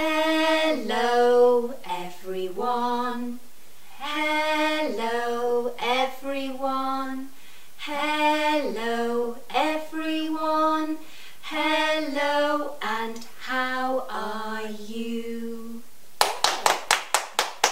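Two women singing a simple children's action song together in held, sing-song phrases. Near the end the singing stops and a quick run of about eight hand claps follows.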